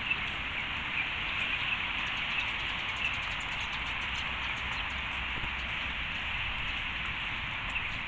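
Steady outdoor background noise: an even hiss with a faint low rumble underneath and no single sound standing out.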